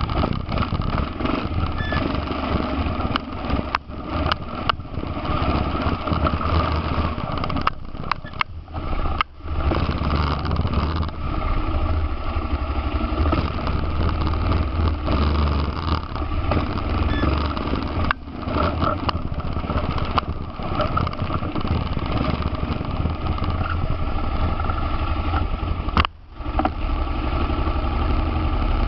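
ATV engine running under way as the quad rides a rough trail, with a few brief drops in level.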